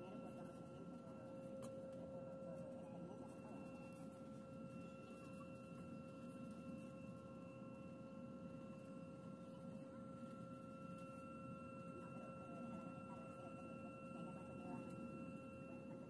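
Airbus A320 cabin while taxiing: a faint, steady low rumble with a thin whine of several steady tones from the engines at idle.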